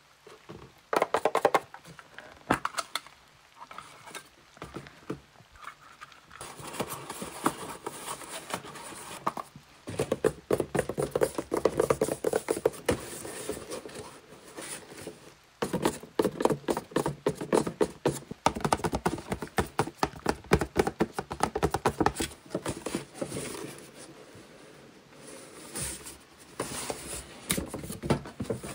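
Close-up crinkling and rustling of tape-covered paper craft pieces being handled, with small taps and scratches from paper fingernail tips. Sparse at first, then dense and nearly continuous crackling from about six seconds in.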